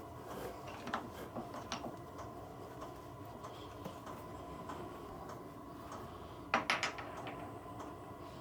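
Small metal tools and parts clinking and knocking as they are handled, with scattered light taps and a quick cluster of clinks about six and a half seconds in, over a steady faint hum.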